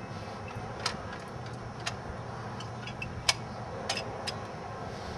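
Scattered sharp metallic clicks and taps, about five in all, the loudest a little past three seconds in, as parts on top of a car's engine are handled by hand with the engine off.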